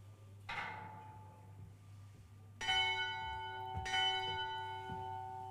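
A bell rung: a light strike about half a second in, then two firm strikes about a second apart, the tone ringing on and fading slowly.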